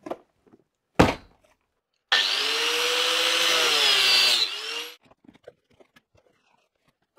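A cardboard box thumps down onto a workbench about a second in. Then an angle grinder with a cut-off disc starts suddenly and runs for about three seconds as it cuts open the parcel, its whine sagging slightly under the load, before it winds down. Faint cardboard handling follows as the box is opened.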